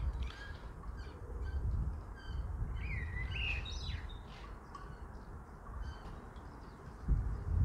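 Small garden birds chirping, with one longer gliding call about three seconds in, over wind rumbling on the microphone; a stronger gust comes in near the end.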